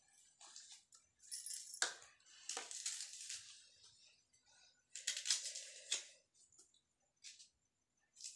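Bangles jingling in several short bursts as the hands work, with light handling rustle between them.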